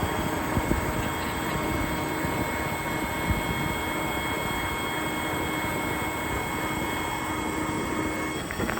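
Ford F550 service truck's 6.7 Power Stroke diesel running steadily, with a steady whine from driven equipment that cuts off shortly before the end.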